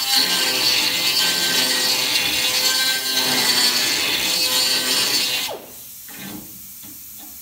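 Air-powered die grinder grinding a small steel part: a steady high whine with the rasp of the bit on the metal. About five and a half seconds in, it shuts off and winds down quickly, leaving only faint clicks.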